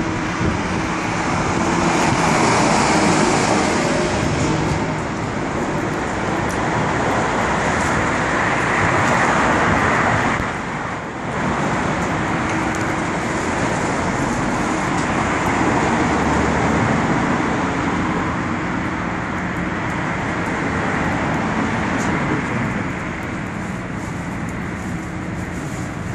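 Road traffic passing on a city street: a steady noise of vehicles that swells and fades as they go by, with a short lull about eleven seconds in.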